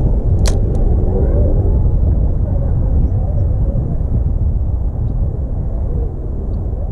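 Wind buffeting the microphone: a loud, steady low rumble, with a sharp click about half a second in.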